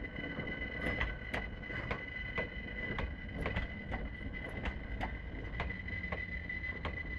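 London Overground Class 378 electric train running slowly past, its wheels clicking over rail joints about twice a second over a low rumble, with a steady high whine.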